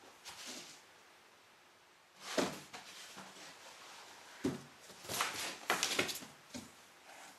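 A cat moving around inside a large cardboard box: a series of scuffs and dull knocks as its paws and body hit the cardboard floor and walls. The loudest comes about two seconds in, and a cluster follows between about four and a half and six and a half seconds.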